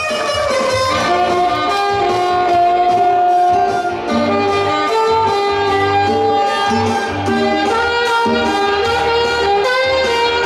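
Saxophone playing a melody of held notes over a backing track with a steady beat and bass line.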